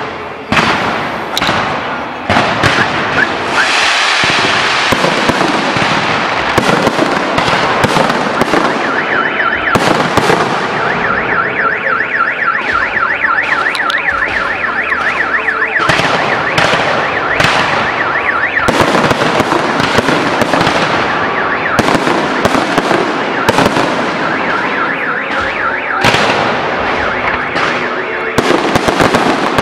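Fireworks display: a continuous barrage of shell bursts and crackle, with sharp reports one after another. A warbling tone, rising and falling several times a second, runs through the middle stretch.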